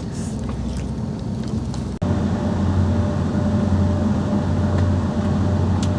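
Steady low rumble of a motor vehicle's engine and running gear heard from inside. About two seconds in it cuts abruptly to a louder, steadier engine drone with a low hum.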